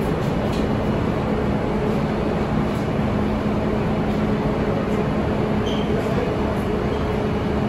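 New York City subway train running in the station: a loud, steady rumble with a low hum, light clicks, and a brief high squeal about six seconds in.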